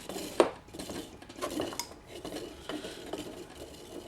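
Light metallic clinks and knocks of electric mower motor parts being handled on a workbench, with one sharper knock about half a second in and smaller taps after it.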